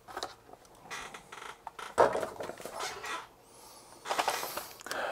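Handling of a new computer fan's cardboard box and packaging on a wooden workbench: scattered clicks and taps, a sharp knock about two seconds in, and a rustle of packaging near the end.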